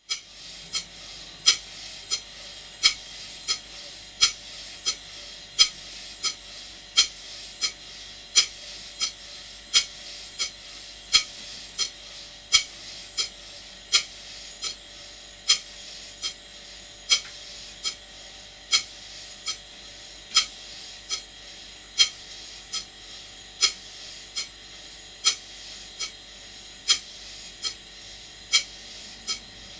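Large model horizontal steam engine running steadily on live steam, its flywheel turning, giving sharp regular beats about every 0.7 s, alternately stronger and softer, over a steady hiss. The engine is running evenly after its valve timing was adjusted.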